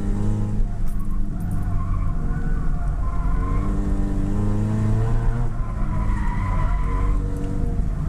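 Toyota Yaris B-Spec race car's engine heard from inside the cabin, its revs rising and falling, while the tyres squeal in stretches as the car slides sideways in oversteer.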